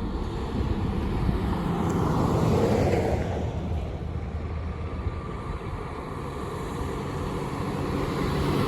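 Rumbling vehicle engine noise that swells about three seconds in and builds again near the end.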